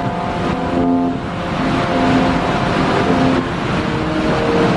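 Floodwater rushing steadily through a dam's open spillway gates and crashing into the river below, with background music of held notes playing over it.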